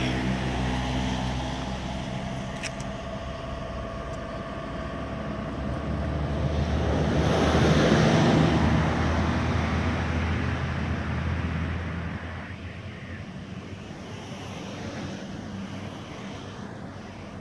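Road traffic. A motor vehicle's engine hums steadily at first, then a vehicle passes close by, swelling to its loudest about eight seconds in and fading away by about twelve seconds.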